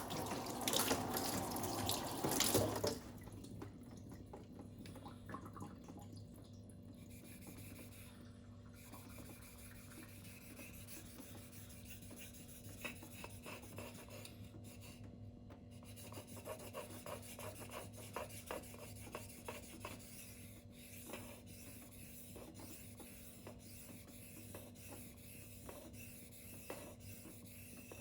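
A steel knife blade stroked back and forth across a wet silicon carbide whetstone, with a quiet scraping rasp at each stroke. It is preceded by a louder rushing noise for about the first three seconds.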